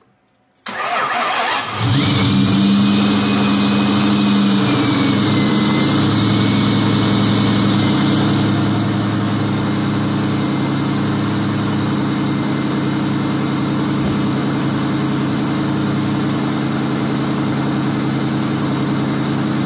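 Freshly rebuilt Ford 4.6-litre V8 (Cobra crank, SVT rods, new 10:1 pistons) on its first startup. The starter cranks briefly and the engine catches within about a second, then runs at a high fast idle that drops and settles lower about eight seconds in. A faint high whine wavers over it for the first several seconds.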